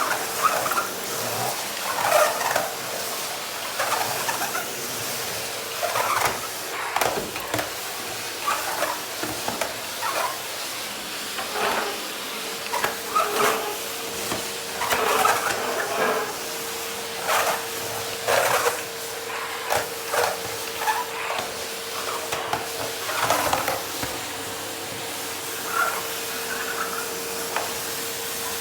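Rowenta vacuum cleaner being handled: irregular knocks, clatter and rustling over a steady hum with a faint thin whine.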